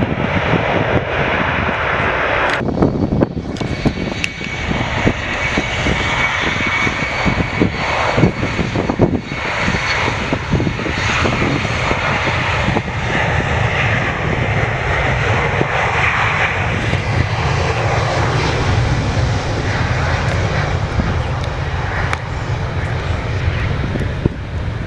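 Jet airliner's engines, loud and steady throughout, with a faint high whine over the noise in the first half.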